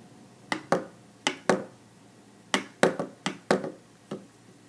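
Flip phone keypad buttons being pressed, about ten sharp clicks in uneven runs of two to four.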